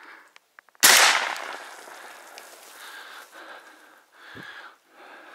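A single shotgun shot at a duck about a second in. The report dies away over about a second.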